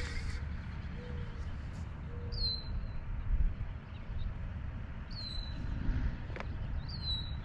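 A songbird calling three times, each a short high whistle that slurs downward, a few seconds apart, over a steady low rumble.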